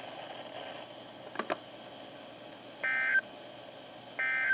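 NOAA Weather Radio's SAME digital data burst, short bursts of tones sent twice a little over a second apart in the second half: the end-of-message code that closes the emergency alert test. Two faint clicks come about a second and a half in, over a light radio hiss.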